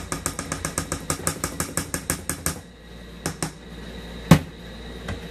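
A spoon clicking and scraping against the metal inner pot of an electric rice cooker as rice is scooped out. The clicks come fast and even, about eight a second, for two and a half seconds, then a few scattered taps. About four seconds in, the rice cooker's lid shuts with a single loud knock.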